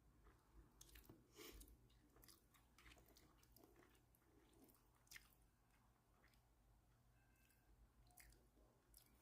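Faint chewing of a mouthful of food, with soft wet mouth clicks and smacks scattered through.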